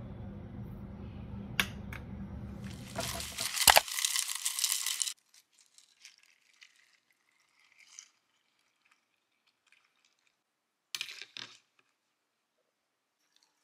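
A steady low machine hum that cuts off after about three and a half seconds, overlapped by a loud hissing rush of liquid for about two seconds; then small drips and ticks, and a short rustle near the end.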